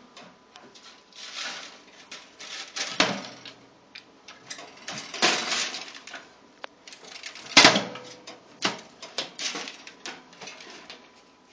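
Toaster oven's metal-and-glass door rattling and clattering as a cat paws and pries at it trying to get it open, with irregular clicks and scrapes and two sharp loud clanks, about three seconds in and again past the middle.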